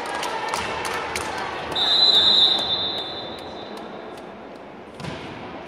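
A referee's whistle blows one high, steady note about two seconds in, fading in the hall's echo: the signal to serve. Sharp taps of a bouncing ball and shoes on the court come before it, and a single thump comes near the end.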